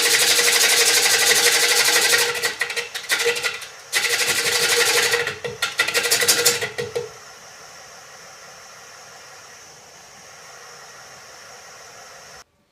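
Gouge cutting into a spinning sweet chestnut bowl on a Poolewood Euro 2000 lathe: a loud, rapid rattling cut that breaks off briefly a couple of times. About seven seconds in the cutting stops, leaving only the lathe running with a quiet steady hum and a high whine.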